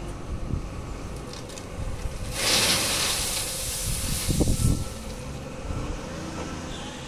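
Crushed stone pouring from a wheel loader's bucket into a dump truck's steel bed: a rushing hiss for about two and a half seconds from a little past two seconds in, with heavy thuds near its end as the load lands. Diesel engines run steadily underneath.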